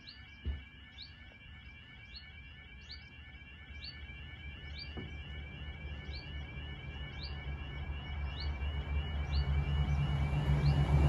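Level crossing's electronic warbling alarm sounding continuously, with a short repeating chirp on top. Under it, the low rumble of an approaching Class 170 Turbostar diesel multiple unit grows steadily louder toward the end.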